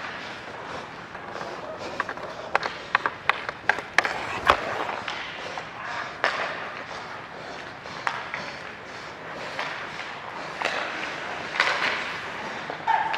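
Ice skate blades scraping and carving on the ice during hockey play, with sharp clacks of sticks and puck scattered through.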